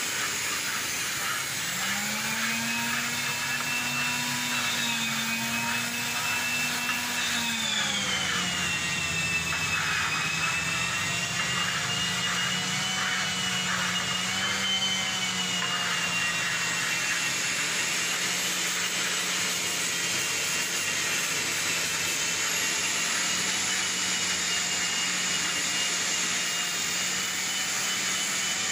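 Oxygen-LPG cutting torch burning through steel plate: a steady hissing roar with a wavering whine running through it, its pitch dropping about eight seconds in.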